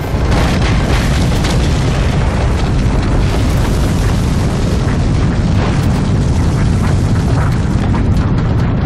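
Film sound effects of a volcanic eruption: a loud, continuous deep rumble with scattered crackles and booms, which comes in suddenly at the start.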